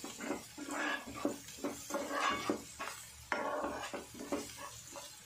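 A slotted spatula stirring and scraping chopped onions and spice powders around a non-stick frying pan, in quick, irregular strokes against the pan.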